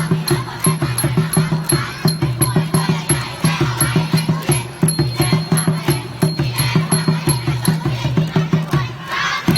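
A crowd of students shouting a group cheer over a fast, steady drum beat.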